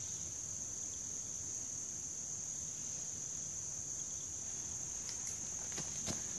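A steady, high-pitched insect chorus, typical of crickets, with a few footsteps through leaf litter near the end.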